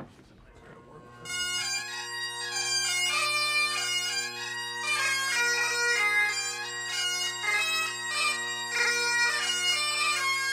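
Great Highland bagpipe tune starting about a second in, with steady drones under the chanter's melody, played as music for Highland dancing.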